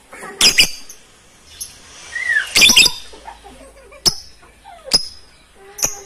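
Lovebirds calling: short, sharp, shrill screeches, some in quick pairs, about one every second, the loudest a bit under three seconds in.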